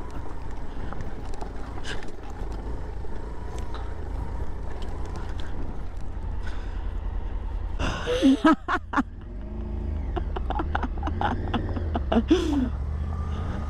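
Suzuki Van Van 125's single-cylinder engine running at low speed on a rough stony track, under a steady low rumble, with scattered short knocks from the ride.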